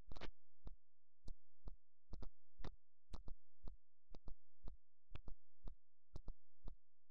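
Computer keyboard keys being typed, about two to three keystrokes a second and some in quick pairs, over a steady electrical hum from the recording microphone.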